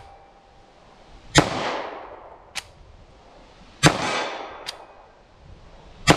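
Taurus G2C .40 S&W compact pistol firing single shots about two and a half seconds apart, each shot echoing and dying away over about a second. A fainter sharp crack follows about a second after each of the first two, and a third shot comes right at the end.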